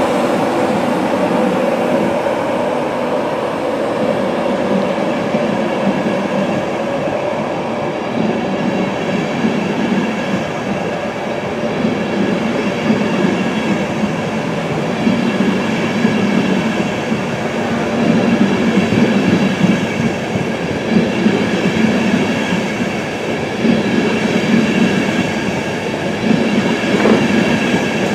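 Intercity passenger train's coaches rolling past close by: a steady rumble with a faint whine and a clatter of wheels over the rail joints, pulsing a little louder in the second half as the last vehicles go by.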